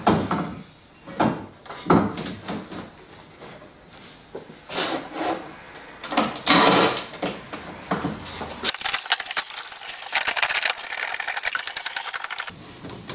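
Clamps and wooden parts being handled while a glued-up frame is clamped: irregular knocks and clunks, then a rapid run of even clicks for about four seconds that stops suddenly.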